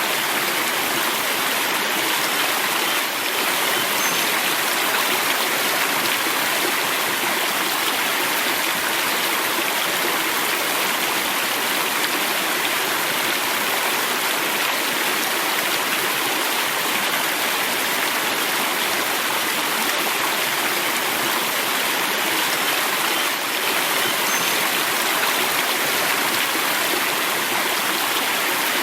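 Steady rushing and babbling of a flowing river, with no breaks in it.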